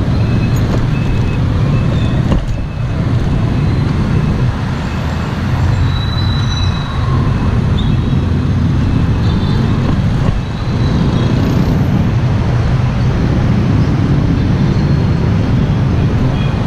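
Steady road-traffic noise: a loud, even rumble, dipping briefly about three seconds in and again about ten seconds in.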